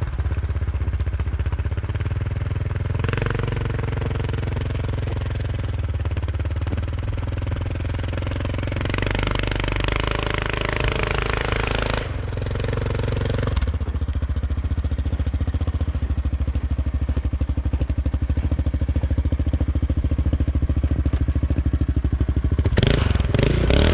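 Yamaha Kodiak 700 ATV's single-cylinder engine running through an RJWC Mud Edition slip-on exhaust as the quad drives through snow. The exhaust note rises and falls with the throttle and grows louder near the end as the ATV comes close.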